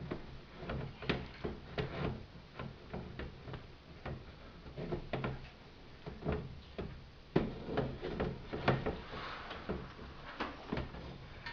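Irregular clicks and knocks of Schwinn 430 elliptical parts being handled and fitted together during assembly, the loudest knocks about two thirds of the way through.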